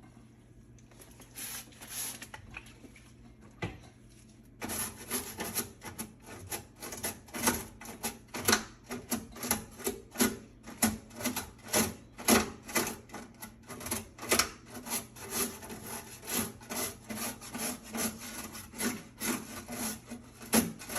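Brush scrubbing inside a microwave to break up caked-on buildup. It is faint and scattered at first, then from about four and a half seconds in becomes brisk and steady back-and-forth strokes, two or three a second.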